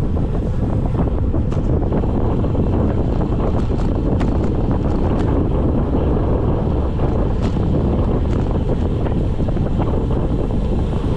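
Wind rushing over the microphone on a road-bike descent, a steady low rumble with a few faint clicks scattered through it.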